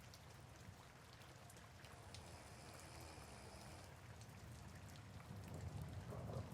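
Faint soft rain, an even hiss dotted with single drop ticks. A low rumble builds near the end.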